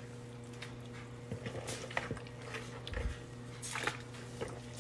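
Hands moving raw turkey pieces in a plastic colander: soft wet squishing and small scattered clicks, over a steady low hum.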